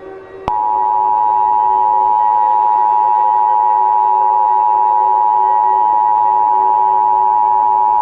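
Emergency Alert System attention signal: two steady pure tones sounding together, starting with a click about half a second in.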